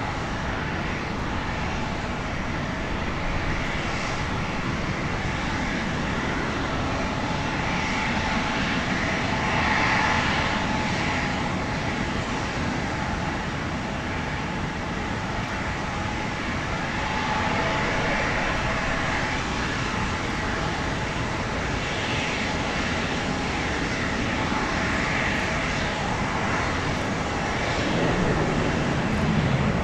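Airbus A220-300's Pratt & Whitney geared turbofan engines running at taxi power: a steady jet rush with a faint whine. A deeper rumble swells near the end.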